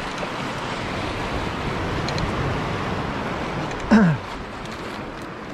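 Steady rush of churning, swirling water against a concrete wall, with wind. About four seconds in, a man gives a brief exclamation that falls in pitch.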